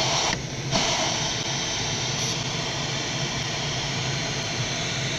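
Steady rush of air around the cockpit of a Duo Discus glider in engineless flight, with the air brakes out. The rush dips briefly about half a second in.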